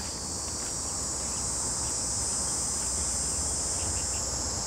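Insects chirring in a steady, continuous high-pitched drone, over a low steady rumble.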